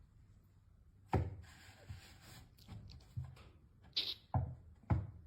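A few faint, irregular knocks and thumps, about half a dozen, with quiet between them.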